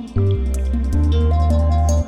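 Background music: electronic-sounding track with a heavy bass line and held synth notes changing pitch every half second or so.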